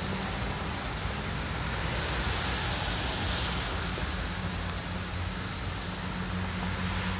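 Steady city street noise of traffic on a wet road, tyres hissing on the wet surface, over a low steady hum.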